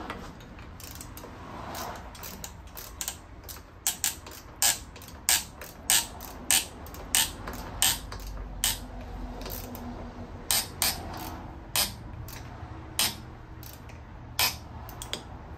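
Hand ratchet clicking as a screw is tightened by hand, sharp single clicks about two a second with a short pause in the middle.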